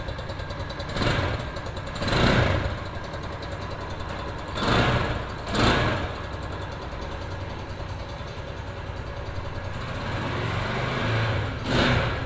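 SuperStar 200 motorcycle engine idling on its first start-up, with five short throttle blips that briefly raise the revs.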